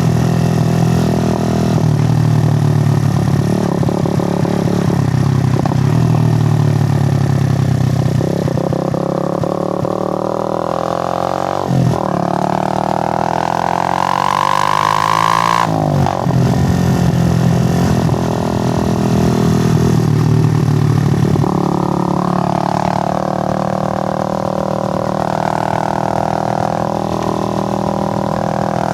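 Suzuki GN125's single-cylinder four-stroke engine running on the move. It pulls up through the gears in the middle, its pitch climbing, with two short breaks for gear changes, then settles into a steady cruise.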